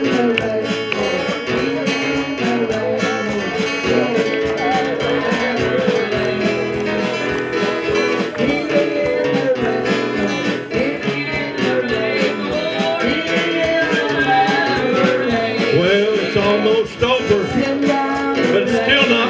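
Gospel music with acoustic guitar and singing.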